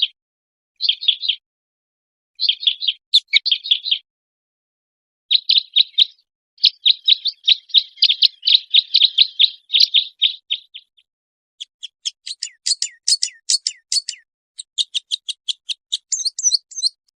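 Songbird singing in fast chirping, trilled phrases separated by short pauses; in the last third the song changes to a long run of sharp, evenly repeated notes.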